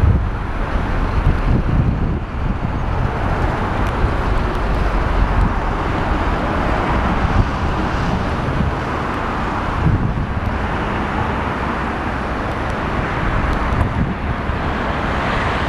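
Dash 8 turboprop on final approach, its engines and propellers giving a steady rushing drone that swells in the middle and later part. Gusting crosswind buffets the microphone with a low rumble.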